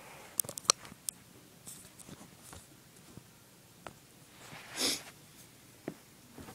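Scissors working into a small cardboard box: several sharp snips and clicks in the first second, then a louder rasping cut lasting about half a second around five seconds in.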